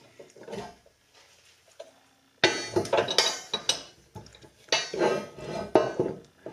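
Heavy, rusty cast-iron Wilton bench vise being set down and slid about on a metal surface, with clanks and scraping in two bursts, about two and a half seconds in and again near the end.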